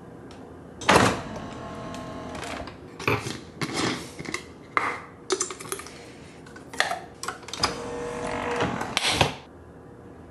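Irregular clicks, knocks and clatter of a coffee maker and a cup being handled and set up for brewing. The loudest knock comes about a second in.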